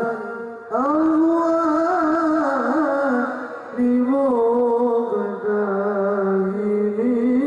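Male voices singing sholawat, Islamic devotional praise, in long drawn-out melodic notes, breaking off briefly about half a second in and again about three and a half seconds in.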